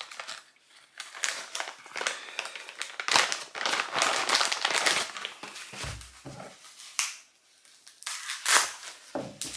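Packaging bag crinkling and rustling by hand as an item is unwrapped, in spells with short pauses, and a soft thud about six seconds in.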